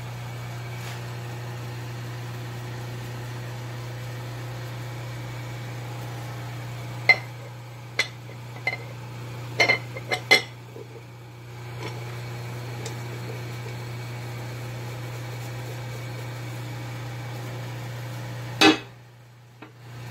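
Metal cover plate being set down on a lathe's cast-iron quick change gearbox: a cluster of sharp metal clanks and knocks, over a steady low machine hum. A louder knock comes near the end, and the hum then drops away briefly.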